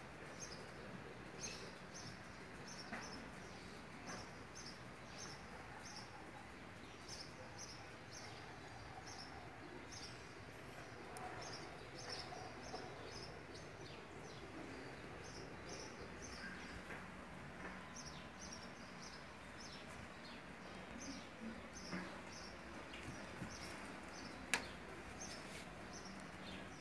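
A small bird chirping over and over in short, high chirps, repeated steadily over faint outdoor background noise. A single sharp click sounds near the end.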